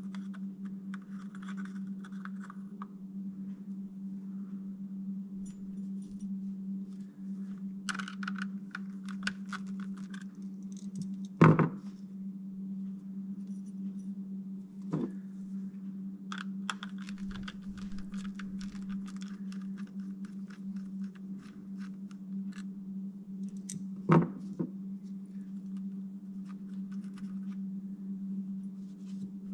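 Small clicks, taps and scrapes of a plastic instrument-cluster housing and its LCD circuit board being handled and worked loose, with two sharper knocks about a third of the way in and again near the end. A steady low hum runs under it all.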